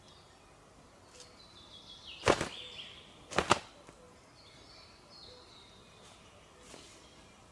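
Two sharp impacts about a second apart, the loudest sounds here, from a man handling things at a wooden stick shelter. Between them a bird sings faintly in short high phrases over quiet forest background.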